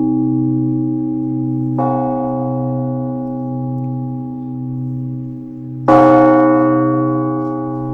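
Large Orthodox church bell tolling the blagovest, the call to the All-Night Vigil: slow single strokes about four seconds apart. The first stroke, about two seconds in, is softer; the second, near six seconds in, is louder. Each leaves a long humming ring that dies away slowly.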